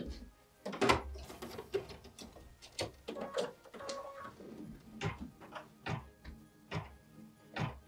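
Scattered clicks and knocks of handling as a fabric-covered embroidery hoop is fitted onto an embroidery machine, coming about one a second in the second half.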